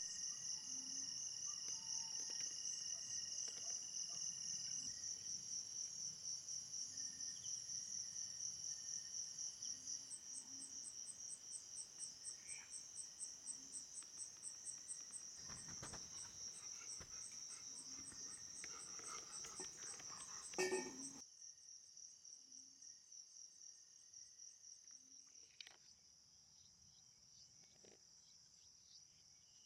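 Night insects, crickets among them, chirring steadily in fast high pulses, with a second, higher chirping joining about a third of the way in. A brief knock is heard about two-thirds through, and after it the insects are suddenly much fainter.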